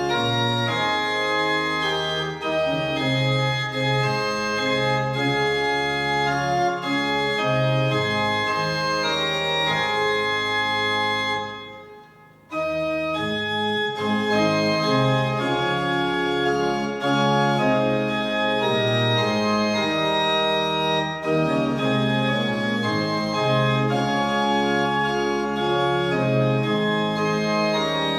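Organ music playing slow held chords, fading out briefly about twelve seconds in and then starting up again.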